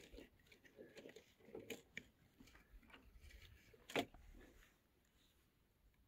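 Faint handling sounds of a winter pike tip-up being taken from the sled and set up: scattered small clicks and rustles, with one sharp click about four seconds in.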